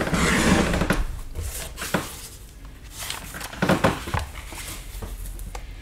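A rustle of clothing and movement in about the first second, then a few light knocks and handling sounds as an old book is set on a wooden table and opened.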